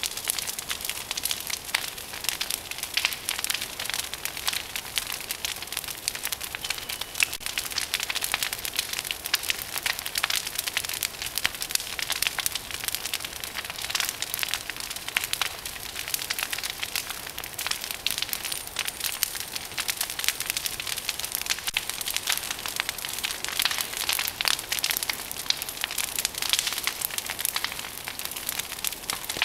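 Large bonfire of a brush pile of tree branches burning hard: a dense, continuous crackling and popping of the burning wood.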